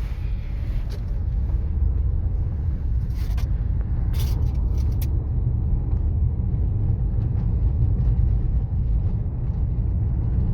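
Steady low road rumble heard inside a car's cabin as Continental CC7 tyres roll over a coarse chip-seal road, building over the first couple of seconds as the car gets going. A few faint clicks about three to five seconds in.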